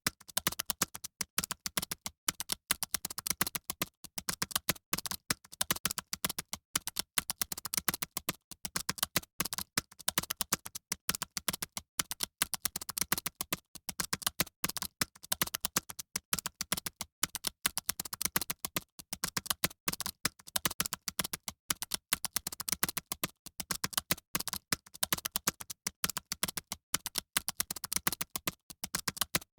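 Fast typing on a computer keyboard: a continuous rapid patter of keystroke clicks with only brief pauses.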